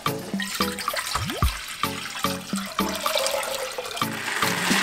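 Water running from a refrigerator door dispenser into a plastic pitcher, then poured from the pitcher into a steel pot, the pouring louder from about four seconds in. Background music with a steady beat runs underneath.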